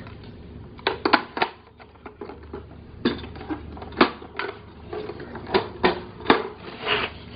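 Hard plastic clicks and taps on a toy cash register, about ten of them at irregular intervals, from the toy being handled and its keys pressed.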